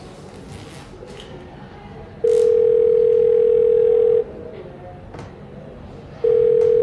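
Telephone ringback tone: a single steady tone held about two seconds, starting about two seconds in, then a second ring near the end, the line ringing while the call waits to be answered.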